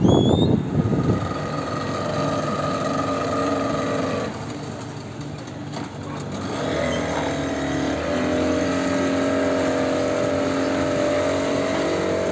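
Engine of a small Nile tourist boat running as the boat manoeuvres to the pier. The engine eases off about four seconds in and picks up again about three seconds later, then runs steadily. A short, loud burst of noise comes in the first second.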